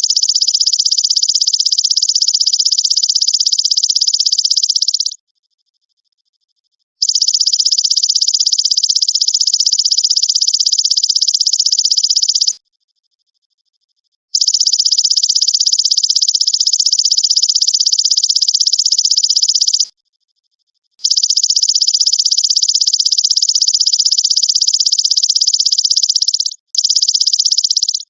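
Belalang emas (golden grasshopper) insect trilling in long, dense, high-pitched buzzing phrases of about five seconds each, with short silent breaks between them. Four full phrases play, and a fifth starts near the end after only a brief pause.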